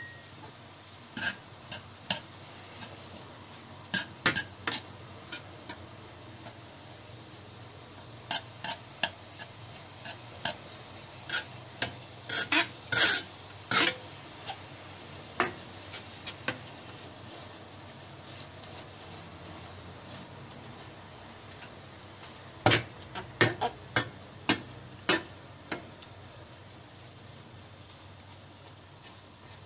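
Metal masher and spatula clacking and scraping against a frying pan as minced meat is stirred and broken up, in scattered bursts of sharp clicks, over a faint steady sizzle of the meat frying.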